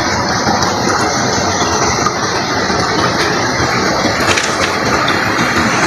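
Stream water rushing and splashing over rocks, a steady hiss without letup.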